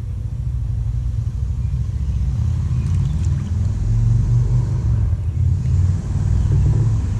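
Wind buffeting the camera's microphone: a loud, gusting low rumble that builds over the first few seconds.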